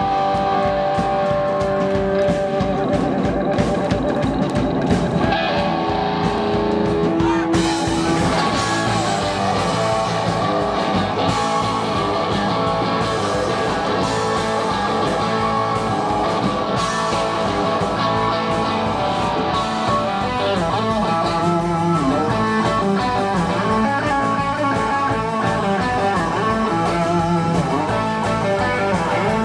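Live rock band playing: electric guitar over bass, drums and a Nord Electro keyboard, with a steady beat. The band comes in fuller about eight seconds in.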